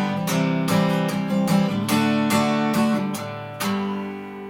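Acoustic guitar strumming the closing bars of a song, then a last strummed chord near the end that is left to ring and fade.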